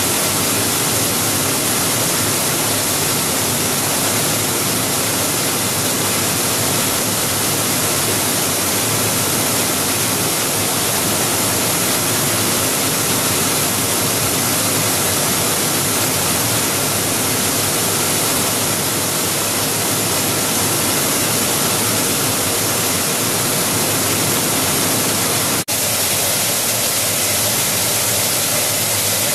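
Plastic recycling and pelletizing line running: a loud, steady machine hiss and hum of the vibrating feeder, motors and blower. It breaks off for an instant near the end.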